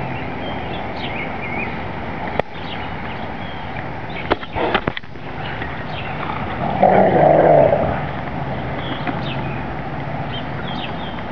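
Dogs at rough play: a single rough growl about a second long, some seven seconds in, is the loudest sound, with a few short knocks before it.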